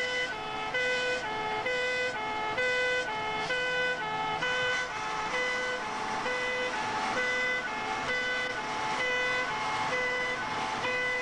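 Fire engine's two-tone siren sounding continuously, a steady high-low alternation of two notes, heard from inside the cab over the engine and road noise.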